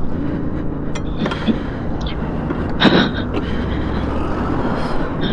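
A steady low engine hum with highway traffic going past close by, and one brief louder burst about three seconds in.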